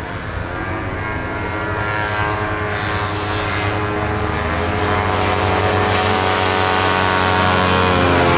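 Several vintage racing snowmobiles with two-stroke engines running at high revs as they accelerate across the ice, the whine of the engines rising and growing steadily louder as the sleds come closer.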